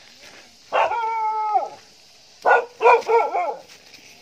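A dog barking: one long, drawn-out howling bark about a second in that drops in pitch at its end, then a quick run of short barks.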